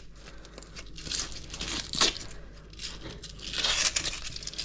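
Tearing and crackling as a leatherjacket fish is pulled apart by hand and its tough, leathery skin is stripped off, with a sharp snap about two seconds in.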